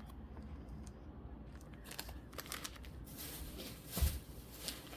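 Faint crinkling and light clicking as packaged candle-wax melts are handled, with a single knock about four seconds in.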